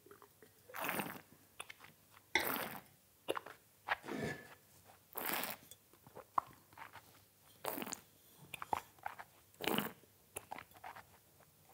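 A wine taster slurping red Syrah wine, drawing air through it in the mouth in about six short hissing slurps with small wet mouth clicks between, to aerate it on the palate; near the end she spits it into a spittoon.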